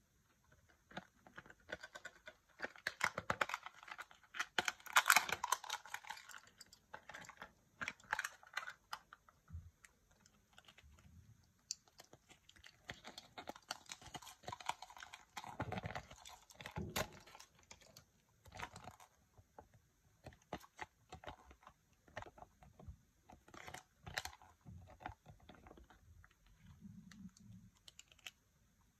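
Hands unwrapping a Kinder Joy egg and handling its toy: a crinkly wrapper and a paper leaflet rustle, with many small clicks of hard plastic capsule and toy parts. The handling is busiest a few seconds in and again around the middle.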